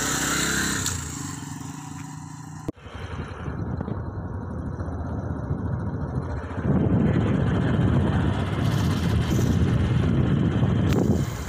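Suzuki motorcycle's single-cylinder engine running, starting suddenly at the outset and holding a steady note. After a sharp break about a third of the way in, it runs under way as the bike is ridden, a rougher, noisier sound that grows louder a little past halfway.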